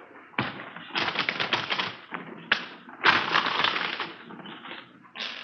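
Radio-drama sound effects of small metal valuables (watches and jewelry) clattering and tapping as they are set out on a table, in irregular bursts of rattles and clicks, with one sharp click about two and a half seconds in.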